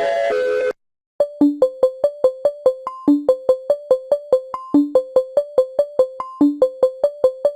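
A held multi-tone electronic chord cuts off within the first second, and after a short gap a simple electronic keyboard melody begins: short plucked notes at about four a second, mostly on one pitch with an occasional lower and higher note.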